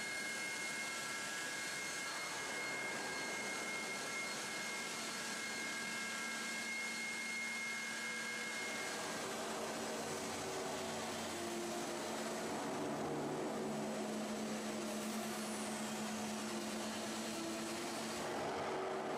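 Steady hum and hiss of steel-pipe mill machinery at an ultrasonic testing station, with a couple of steady high whines that stop about halfway through. After that comes a lower, wavering hum.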